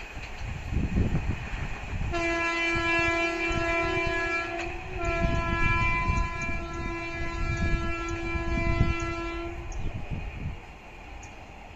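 Train horn sounding two long, steady blasts, the second longer, over the low rumble of a train running on the rails.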